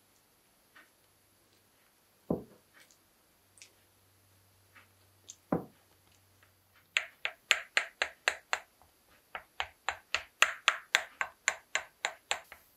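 A fork pricking dough pressed into a glass pie dish: quick sharp clicks, about four a second, as the tines strike the glass through the dough, starting about seven seconds in. Before that, two dull thumps as the dough is pressed into the dish by hand.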